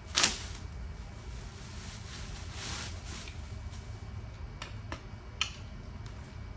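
Tilite X wheelchair footrest being fitted onto the frame: a sharp knock just after the start, a soft rustle near the middle, then three light clicks near the end.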